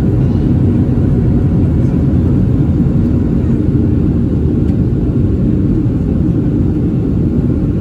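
Boeing 737-700 cabin noise: a steady low rumble of the CFM56-7B jet engines and rushing air heard from inside the passenger cabin, holding even without rising or falling.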